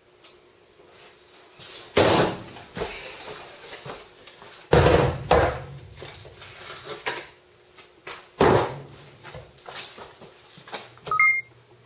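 Loud thumps about three seconds apart, with lighter knocks and clatter between them, as a skateboard is set down and handled on a workbench in a small room. Two short high beeps near the end.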